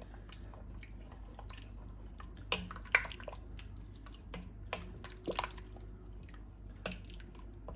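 Wooden spoon stirring thick beef and vegetable soup in a stainless steel Instant Pot inner pot: wet squelching and dripping, with a few sharp clicks, the loudest about three seconds in and again a little after five seconds.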